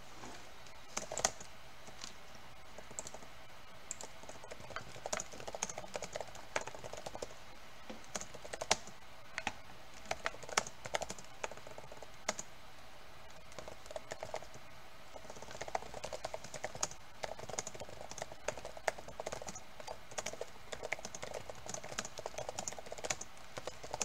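Typing on a computer keyboard: irregular runs of key clicks, thinning out briefly midway, as a long sentence is typed.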